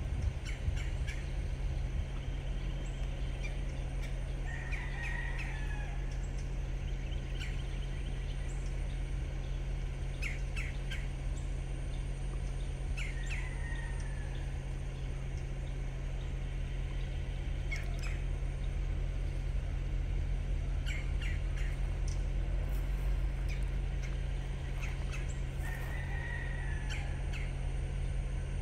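Birds calling: a few short down-slurred squawks and scattered quick chirps, over a steady low drone from a distant diesel locomotive on its approach.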